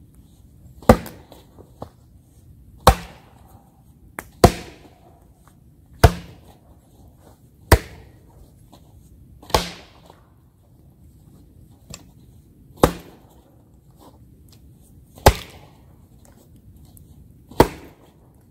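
Hatchet chopping wood: nine sharp, loud strikes, one every couple of seconds, with a few lighter taps between them.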